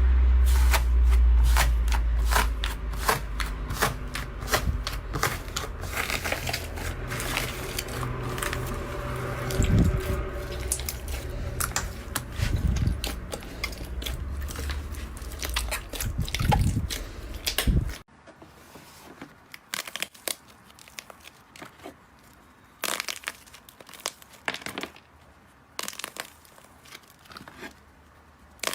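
Slime being squeezed and kneaded by hand, giving dense crackling clicks and pops. It cuts off abruptly about two-thirds of the way in, and a quieter stretch follows with scattered pops.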